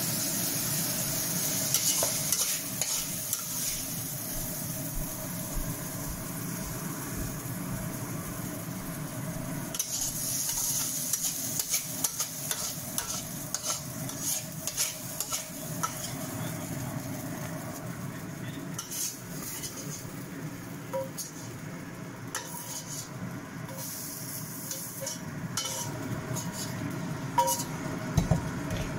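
Shredded potato sizzling in a hot wok while a metal spatula scrapes and scoops it out onto a plate, with scattered clicks of the spatula against the wok and plate.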